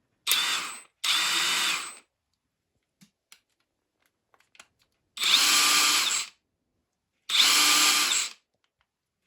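Hilmann HL 4170 impact wrench spinning freely with no load, triggered in four short bursts. The first two runs come back to back, and two longer runs follow about five and seven seconds in, each a steady motor whine.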